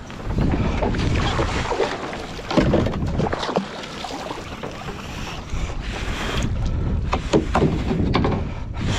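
Wind buffeting the microphone and water washing around a kayak on the open sea, with scattered clicks and knocks.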